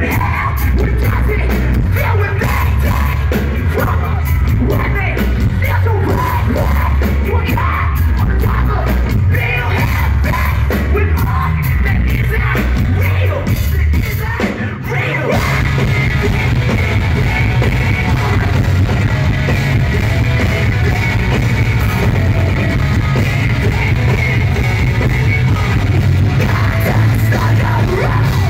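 Live rock band playing loud: drums, electric guitar and yelled vocals, with a heavy, boomy low end. The music dips briefly about halfway through.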